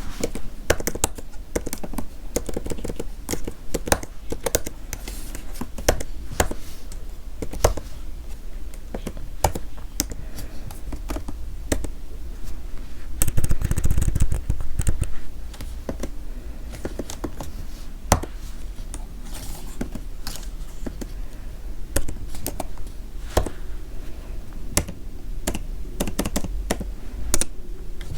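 Computer keyboard being typed on: irregular keystroke clicks throughout, with a faster, louder flurry of keystrokes about halfway through.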